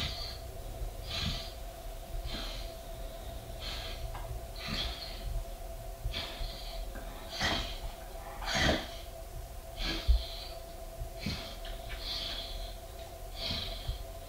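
Weimaraner bitch in labour breathing heavily, a noisy breath about every second, over a faint steady hum. One short knock about ten seconds in.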